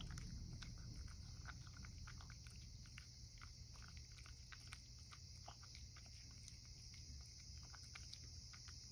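Cat eating canned food from a ceramic bowl: faint, irregular wet chewing and lapping clicks, several a second.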